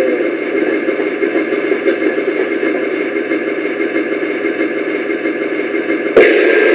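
Simulated KV-2 tank engine idling from a tank model's sound unit, a steady rumble; a little past six seconds in it switches abruptly to a louder sound.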